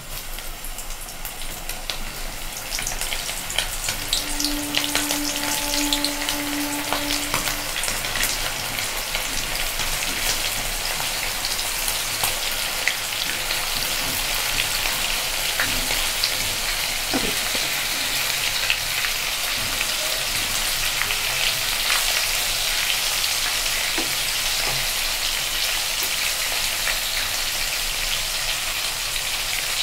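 Chicken wings coated in a dry flour and cornflour batter deep-frying in hot oil in a wok: a steady sizzle full of fine crackling pops, growing louder over the first few seconds as pieces go into the oil, then holding steady.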